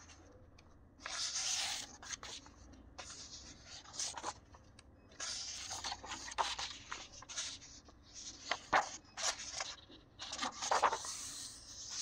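Pages of a tan-paper sketchbook being turned and smoothed by hand: about five papery rustles and swishes, with light ticks of paper and fingers between them.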